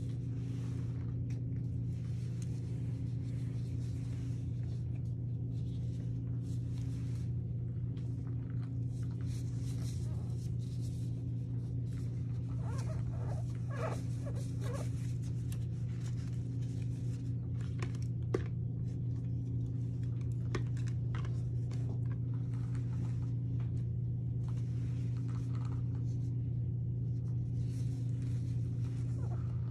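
Steady low hum, with intermittent soft brushing and rustling as relaxer is brushed onto hair with a gloved hand, and one sharp click midway.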